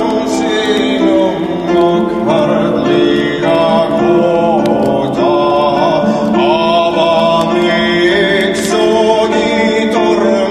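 Music with singing: long held vocal notes that slide between pitches, over sustained instrumental tones.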